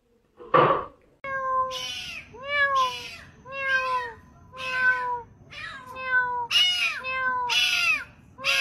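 A kitten meowing over and over: about a dozen short meows, each rising then falling in pitch. They start after one brief loud noise near the beginning.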